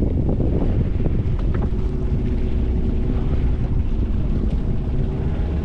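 Fishing boat engine running steadily, with wind buffeting the microphone.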